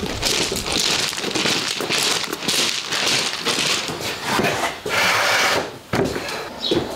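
Footsteps crunching on loose gravel as wooden pallets are carried. About five seconds in, a wooden pallet scrapes on a concrete floor and knocks as it is set down.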